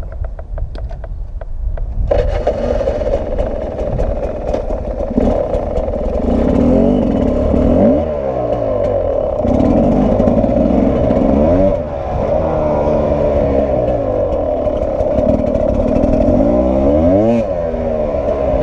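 Sherco 300 SE-R two-stroke enduro motorcycle running low for about two seconds, then pulling away and riding a dirt track, its revs rising and falling over and over as the throttle is worked.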